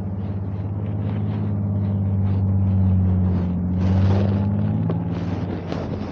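2023 Toyota Sequoia TRD Pro's twin-turbo V6 hybrid powertrain pulling at low speed off-road, a steady engine drone that builds over the first few seconds. A rush of rough noise comes about four seconds in, and the engine note eases just before the end.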